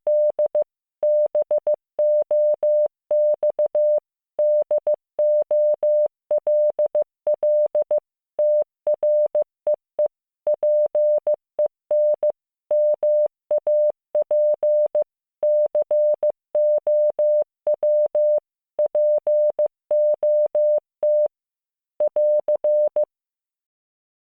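Computer-generated Morse code: a steady tone near 600 Hz keyed on and off into dots and dashes, spelling out English words in groups separated by short pauses, with a faint click at each key-on and key-off. The keying stops near the end.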